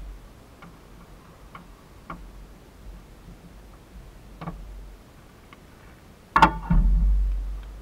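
A few faint scattered clicks, then about six seconds in a loud metallic slam with a short ring, as the hood of a 2001 Jeep Wrangler TJ is shut, followed by a low rumble that fades over about a second.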